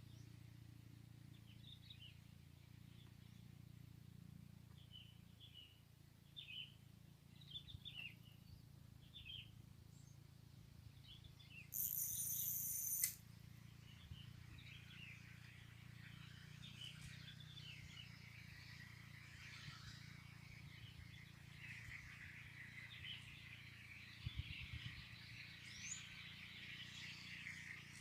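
Small birds chirping faintly in short calls, sparse at first and busier through the second half, over a steady low background hum. A brief loud high-pitched buzz cuts in a little before halfway.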